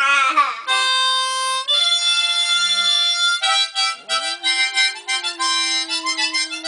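Harmonica playing long held chords, then a run of quick short notes. From about four seconds in, a boxer dog joins with a long low howl that rises and then holds steady.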